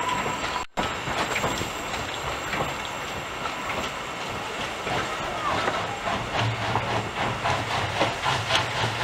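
A 2 ft gauge narrow-gauge steam train running, with a steady rumble and a regular clicking rattle of wheels on track that grows busier over the second half. The sound drops out briefly a little under a second in.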